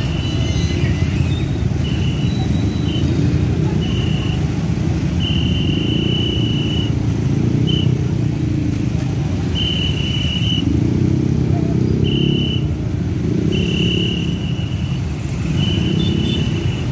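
Many motorcycle and car engines idling together in a packed queue of traffic, a steady low rumble. Over it a single high-pitched tone sounds again and again at uneven intervals, each lasting from half a second to over a second.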